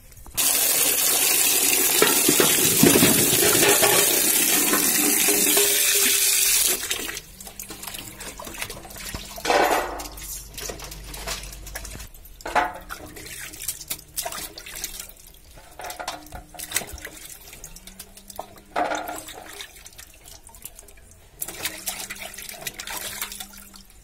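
A stream of water pouring loudly into a metal basin, cutting off suddenly after about six seconds. Then hands slosh and rub green tomatoes in the water, with scattered splashes.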